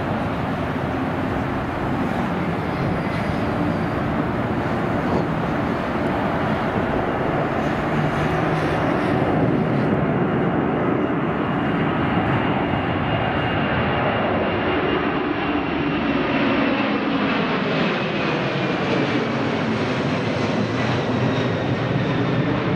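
Boeing 747-400's four turbofan engines at takeoff thrust as the jet climbs out and passes overhead: a steady loud roar, with a high whine that slides down in pitch in the second half as the plane goes by and moves away.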